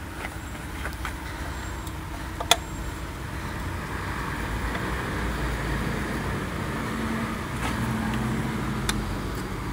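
Road traffic going by, a steady rumble that grows louder from about halfway through. A few sharp metallic clicks come from a ratchet and socket working a 13 mm bolt on the transmission.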